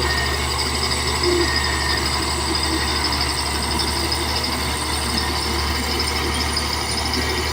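Caterpillar D8 bulldozer's diesel engine running steadily with a constant low drone.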